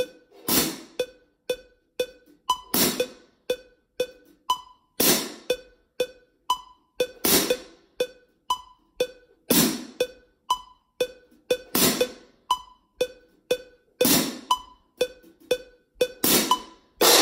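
Pair of marching crash cymbals struck together in a loud crash about every two and a quarter seconds, each crash ringing briefly before it is stopped. Under them a metronome ticks steadily, about four ticks to each crash.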